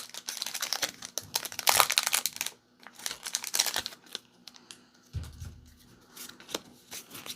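A foil Pokémon TCG booster pack wrapper being torn open and crinkled by hand, in repeated crackling bursts through the first few seconds. A short dull low bump of handling follows about five seconds in.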